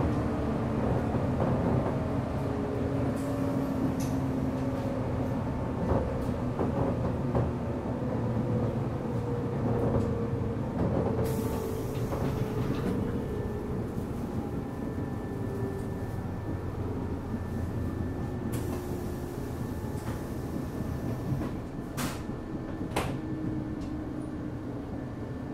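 Onboard running sound of a JR 185 series electric multiple unit: a deep rumble of wheels on track with the hum and whine of its MT54 traction motors. The motor tones slowly fall in pitch as the train slows. Occasional sharp clicks come from the running gear.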